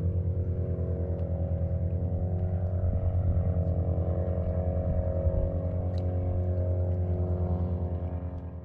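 Boat engine idling steadily, a low even hum with a regular pulse; it fades out near the end.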